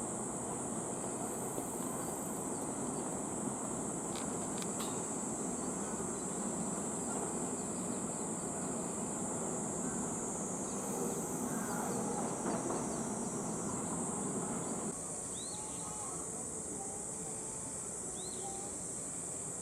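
Cicadas droning steadily in a high, even hiss over a low background din, which drops off about fifteen seconds in. Two short high chirps come near the end.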